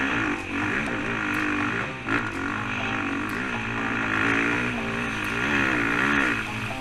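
Motocross bike engine being ridden hard, its pitch rising and falling again and again as the throttle is opened and closed.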